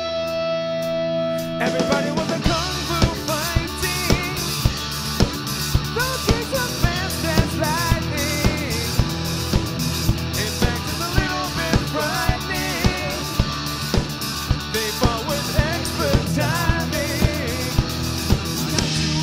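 Rock band music: a held electric guitar chord, then about two seconds in drums, bass and guitar come in together with a steady beat of about two strikes a second under a singing voice.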